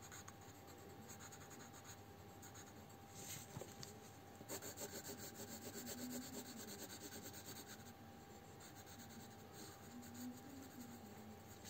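Pencil lead rubbing on paper in quick back-and-forth shading strokes, faint, with the strokes a little louder from about four and a half to seven seconds in.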